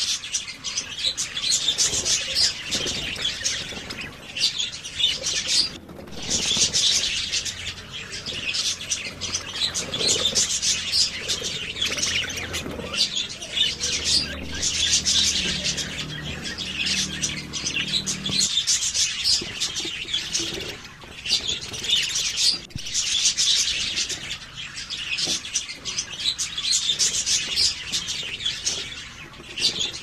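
A flock of budgerigars chattering: a dense, continuous high twittering and chirping with a few brief lulls.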